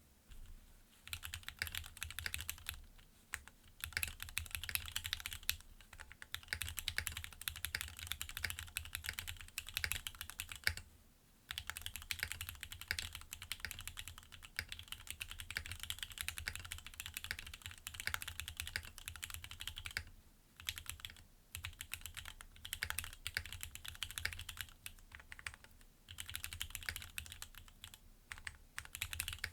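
Fast typing on a Geonworks Frog mini mechanical keyboard with Gateron Milky Yellow linear switches and PBT keycaps: dense, rapid keystroke clicks in bursts of several seconds, with short pauses between them.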